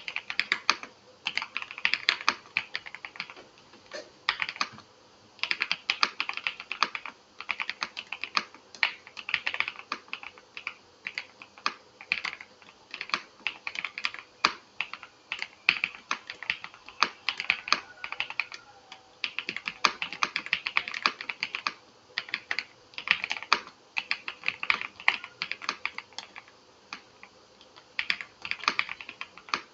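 VGN V87 Pro mechanical keyboard with Kailh hot-swap sockets being typed on: rapid keystroke clicks come in bursts of a second or two, with brief pauses between them.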